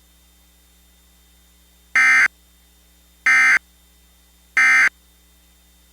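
Emergency Alert System end-of-message (EOM) signal: three short bursts of SAME digital data tones, evenly spaced about 1.3 seconds apart, marking the end of the alert.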